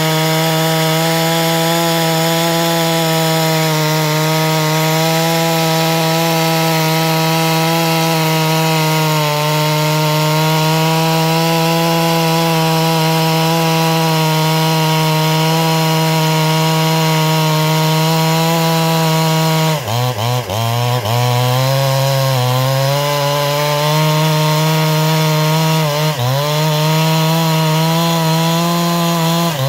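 Clone chainsaw with a 36-inch bar and full-chisel chain running at full throttle, cutting steadily through a green hardwood log under load. About two-thirds of the way through, the engine speed dips and recovers several times in quick succession, then briefly again a few seconds later and at the very end.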